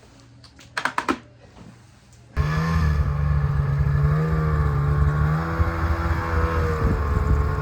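Snowmobile engine running loud and steady, cutting in abruptly a little over two seconds in. Before that, near-quiet room sound with a brief high sound about a second in.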